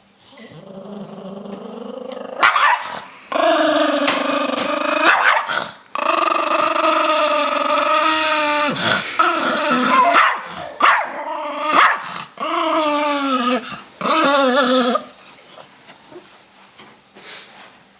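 Chihuahua growling in long, wavering, fairly high-pitched growls, broken by a few short sharp barks, a dog protesting at being put in the shower. The growling stops about fifteen seconds in.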